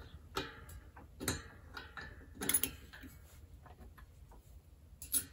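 Scattered light clicks and knocks of small metal bicycle-hub parts being handled, as the hub's dust cover is picked up and fitted.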